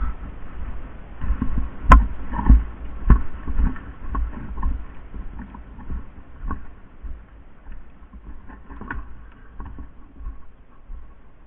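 Irregular footsteps and dull thumps with rustling, heaviest in the first few seconds, with one sharp click about two seconds in.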